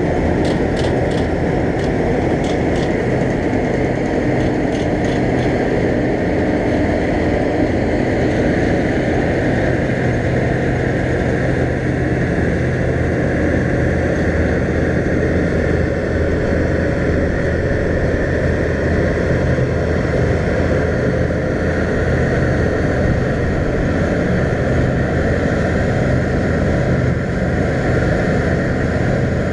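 New Holland TX34 combine harvester running steadily as it cuts barley: a constant diesel engine drone mixed with the noise of the threshing machinery.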